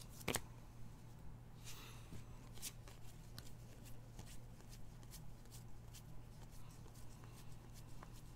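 A stack of cardstock trading cards being flicked through one by one: a string of short, soft clicks and slides as each card is pushed off the stack, with a sharper snap about a third of a second in and a brief rustle near two seconds.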